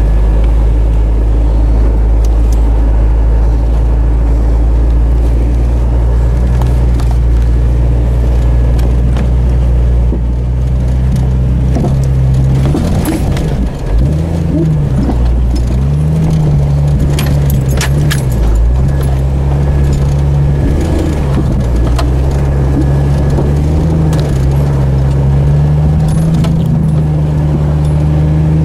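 Jeep Cherokee XJ's engine running at crawling trail speed, heard from inside the cab, its pitch rising and falling with the throttle. Clicks and knocks of the body and loose items come over the rough ground, most of them around the middle.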